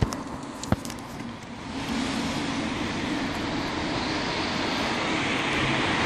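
Two sharp clicks in the first second, then the steady rushing noise of a car passing on the street, building gradually over the last few seconds.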